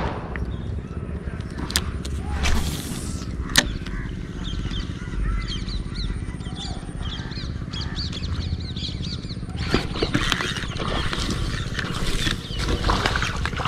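Handling noise from a fishing rod and spinning reel while a lure is retrieved, with a few sharp clicks in the first few seconds and a low rumble throughout. Small birds chirp for several seconds in the middle. A louder, noisier stretch of rustling starts about ten seconds in.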